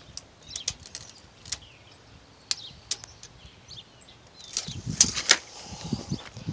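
Scattered sharp clicks and a few faint, short falling bird chirps; about four and a half seconds in, louder footsteps and handling noise begin.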